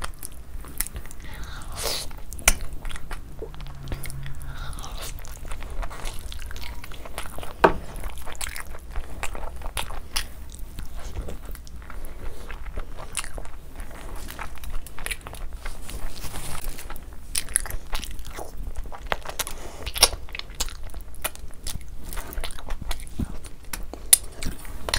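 Close-miked eating: a person biting and chewing curried mutton off the bone, with many irregular short, sharp mouth clicks and crunches.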